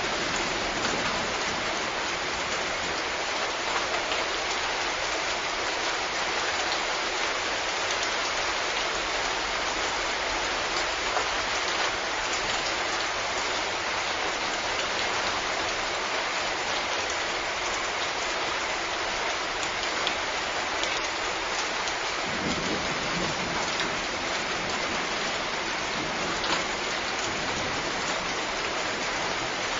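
Steady rain falling, an even hiss with single drops standing out here and there.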